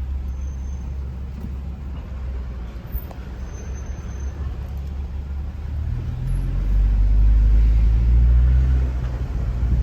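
A car driving: steady low engine and road rumble that grows louder about six seconds in, as the engine note strengthens.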